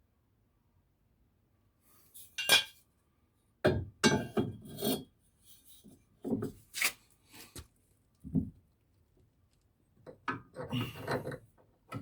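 Metal parts and tools clinking, knocking and scraping in short, irregular bursts, starting about two seconds in, as a ball joint is fitted back into a car's front suspension.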